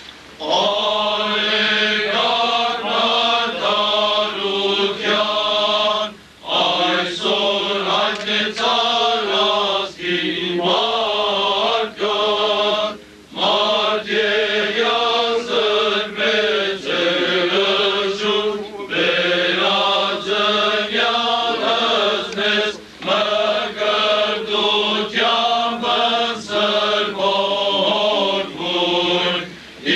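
Armenian liturgical chant: men's voices singing a slow hymn in long melodic phrases with short pauses every few seconds.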